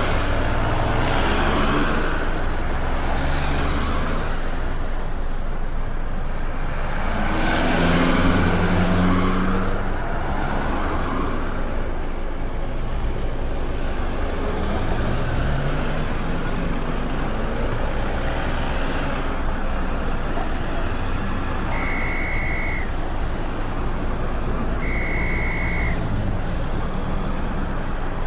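Busy road traffic: cars and trucks driving past with engines running and tyre noise, one vehicle passing loudest about eight seconds in. Near the end come two short, high, steady beeps about three seconds apart.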